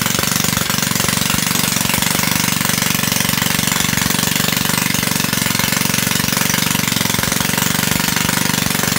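Small petrol engine of a rebuilt generator running steadily, its firing strokes coming in a fast, even beat.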